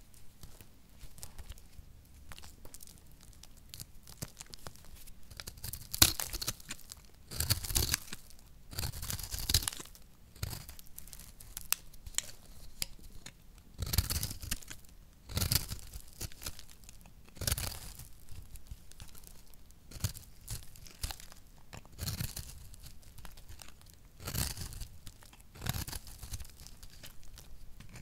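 Dry, brittle soap crumbled between fingers, then a utility knife blade cutting into a round plate of dry soap. The cuts come as short, crunchy strokes every second or two.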